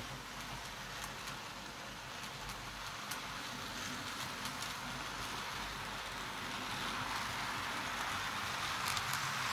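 N gauge Class 33 model diesel locomotive hauling coaches around a curve: a steady whirr and rattle from its motor and wheels on the track, getting louder as it approaches, with a few light clicks near the end.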